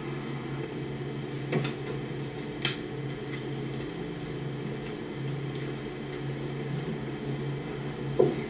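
Steady low hum of room noise, with three faint clicks: about one and a half seconds in, near three seconds, and near the end.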